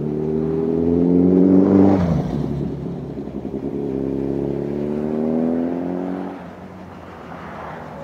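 Motorcycle engine accelerating hard past: its pitch climbs, drops sharply about two seconds in, as at a gear change, then climbs again before fading away about six seconds in.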